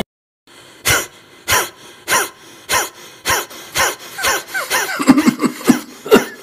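A man making short, forceful breaths out in a steady rhythm, about one every 0.6 seconds, as in a yogic breathing exercise. They start about a second in and come faster and less evenly near the end.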